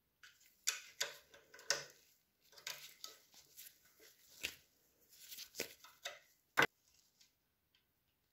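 Irregular clicks, taps and short scrapes of small brass blowtorch fittings being handled and worked in a metal-jawed bench vice, with one sharp metal click a little over six seconds in.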